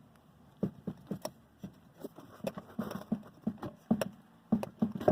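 Irregular clunks and clicks from the front suspension of a Chevrolet Spin as the jacked-up, loaded strut is worked to show its play, starting under a second in and coming faster later. The knocking is the sign of large play at the top of the front strut: a worn strut top mount whose rubber has cracked inside, which the mechanic says gives the same noise as a worn strut bearing.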